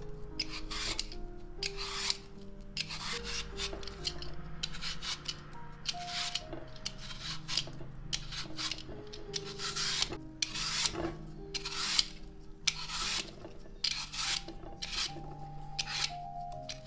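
Y-peeler's metal blade scraping the skin off an apple in a steady run of short strokes, about one to two a second.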